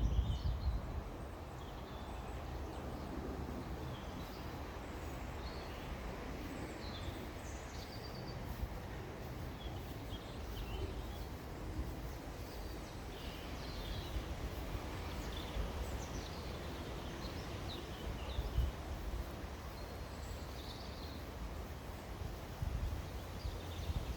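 Several small birds singing and chirping in short scattered phrases, over a steady low background rumble.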